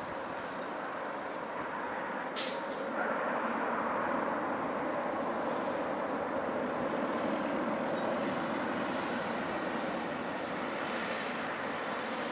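Twin-engine jet airliner's engines at takeoff thrust during the takeoff roll, heard from behind: a steady rushing jet noise that grows louder about three seconds in. A single sharp click about two seconds in.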